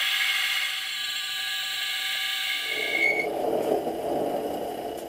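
Mini lathe turning a stainless steel bar: a steady high-pitched whine from the machine and the cut, which gives way about three seconds in to a lower, rougher whir.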